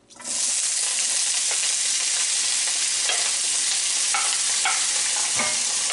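Sliced red onions dropped into hot olive oil in a wok, sizzling loudly from the moment they hit, starting abruptly just after the start. A wooden spatula stirs them, with a few short scrapes and knocks against the pan.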